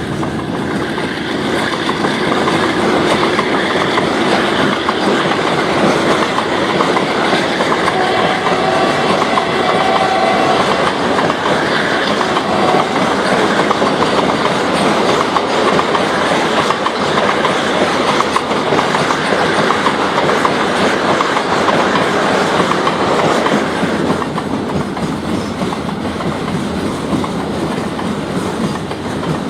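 Goods train rolling past, its wheels clattering steadily over the rail joints; the sound eases a little near the end.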